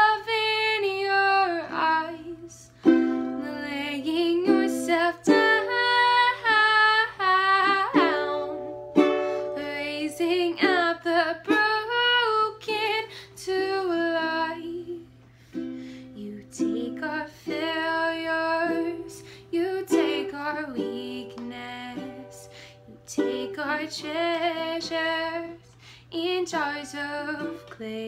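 Ukulele played in a gentle picked and strummed pattern, with a woman's voice singing a melody over it.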